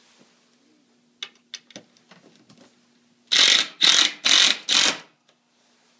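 Drill driving a screw into two glued boards in four short bursts, after a few light clicks.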